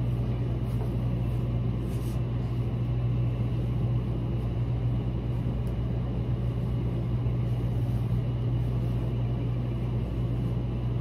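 A steady low machine hum over a rumbling noise, unchanging in level, with only faint soft rustles now and then.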